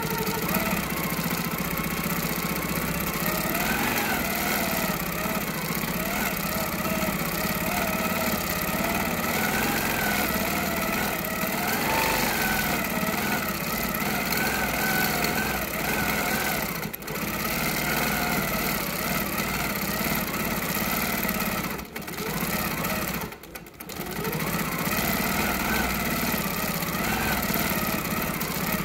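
Quilting machine stitching steadily, its motor hum wavering in pitch as the stitching speed changes. It stops briefly about two-thirds of the way in, and twice more a few seconds later.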